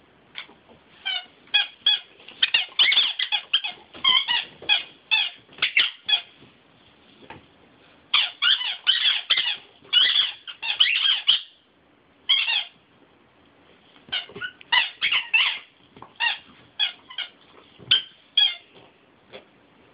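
A dog chewing a white bone-shaped squeaky toy, squeezing out quick runs of high squeaks with pauses of a second or two between runs.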